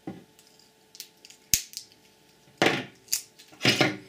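Side cutters crunching and snapping at a small plastic part: a sharp click about a second and a half in, then two harsh crunches with a snap between them over the last second and a half.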